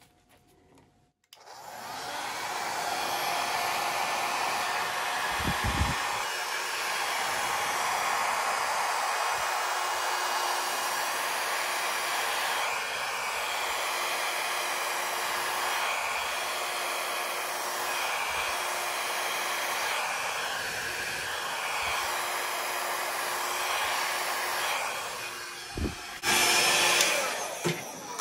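Hair dryer switched on about a second in and blowing steadily on wet acrylic paint, a constant rushing of air. It cuts off near the end, followed by a brief, louder rush.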